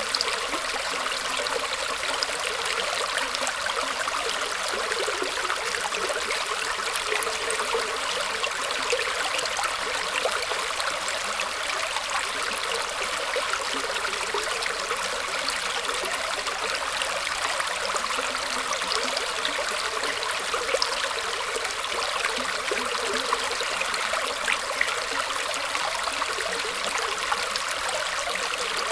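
A small stream of water flowing and trickling over roots, a steady splashing rush with many small gurgles and no change.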